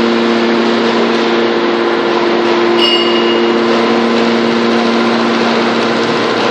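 Hydraulic power unit of a Y81-3150 scrap metal baler running steadily under load, a loud even hum as the lid cylinder swings the baler's cover shut. A brief high squeal about three seconds in.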